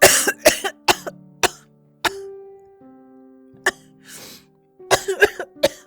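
A woman coughing in sharp, forced hacks: a quick run of four coughs, two spaced single coughs, a breath, then a tight cluster of coughs near the end, over steady background music.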